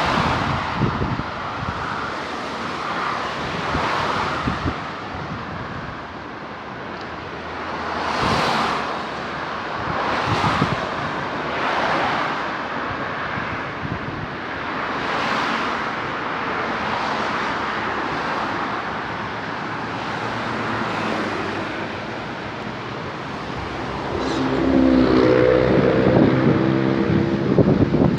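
Road traffic, with cars passing one after another as a steady rushing noise that swells and fades every few seconds, mixed with wind on the microphone. Near the end a louder vehicle passes close, its engine giving a low pitched drone.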